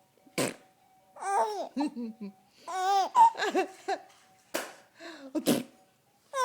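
A small child laughing and babbling in repeated bursts, set off by short, sharp sneezes: one sneeze near the start and two more shortly before the end.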